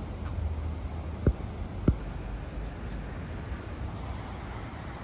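Steady rushing outdoor background noise with a low rumble, broken by two short dull thumps about a second and a quarter and two seconds in.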